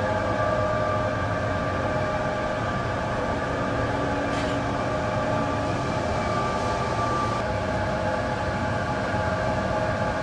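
35mm film projectors and their booth machinery running: a steady mechanical drone with several held tones.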